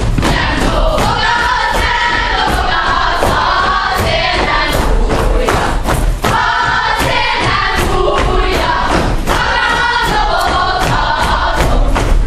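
Hungarian folk dance performance: a group of dancers singing a folk song together in chorus while dancing in a circle, their feet stamping repeatedly on the wooden stage, with a live folk band including a double bass accompanying.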